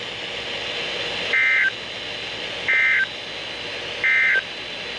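Emergency Alert System end-of-message data tones: three short warbling bursts, each about a third of a second long and about 1.3 s apart, marking the end of the alert. They sound over faint broadcast hiss.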